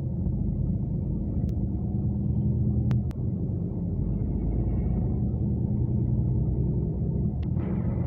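Steady low rumble of a coach bus driving, heard from inside the passenger cabin, with a few short sharp clicks. A brighter hiss joins near the end.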